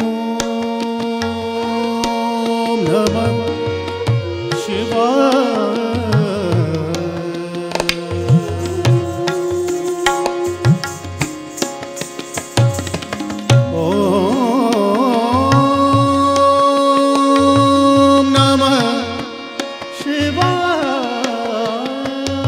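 Hindustani classical music for Kathak: tabla playing a steady pattern of deep strokes under a melody of long held notes, broken now and then by quick wavering ornaments.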